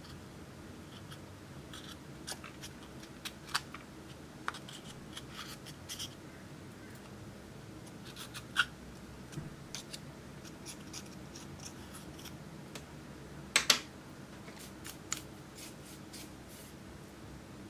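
A thin metal pick scraping and prying pressed eyeshadow out of the pans of a compact palette: scattered short scratches and clicks, the loudest a pair of sharp clicks about three-quarters of the way through.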